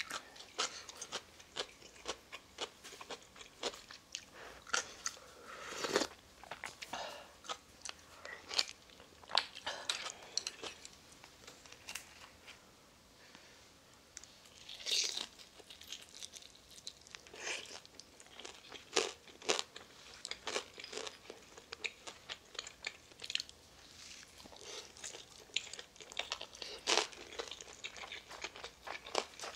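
Close-up eating sounds: chewing and biting, including a bite into a pan-fried dumpling, with many short sharp clicks and crunches throughout.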